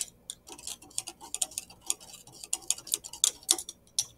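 A long thermometer stirring inside a test tube, rapid irregular clinks and ticks as it knocks against the tube's walls, stopping abruptly at the end as the thermometer is lifted out.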